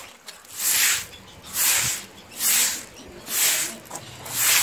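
A long-bristled hand broom swishing over a wet floor in steady strokes, five sweeps about a second apart.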